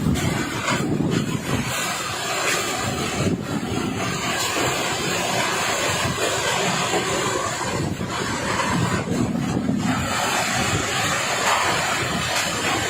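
Typhoon-force wind gusting hard and steadily, buffeting the microphone with rushing noise that swells and eases in waves.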